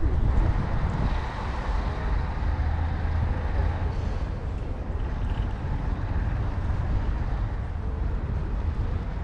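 Steady outdoor city ambience: an even low rumble with a fainter hiss above it and no distinct events standing out.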